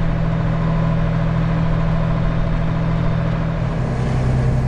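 Diesel engine of harvest machinery running steadily, a deep steady hum whose pitch shifts slightly about four seconds in.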